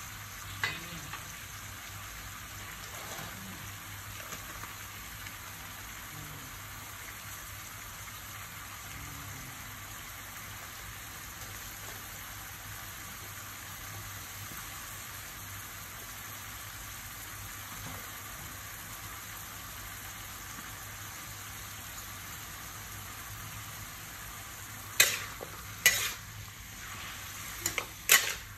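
Cabbage and leafy greens sizzling steadily in a hot wok. Near the end a spatula knocks and scrapes against the wok several times as the vegetables are stirred, and these knocks are the loudest sounds.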